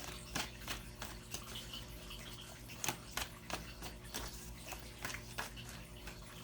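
Tarot cards being handled and laid down: a faint run of light, irregular clicks and taps, several a second, over a low steady hum.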